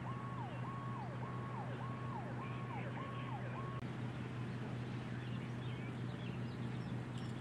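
Emergency vehicle siren sounding in quick repeated falling sweeps, about two a second, over a steady low engine hum. The siren cuts off abruptly about four seconds in, leaving the hum.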